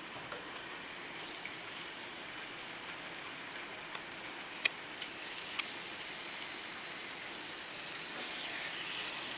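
Marinated king mackerel pieces shallow-frying in hot coconut oil in a pan: a steady sizzle with scattered pops, which grows louder and higher-pitched about five seconds in.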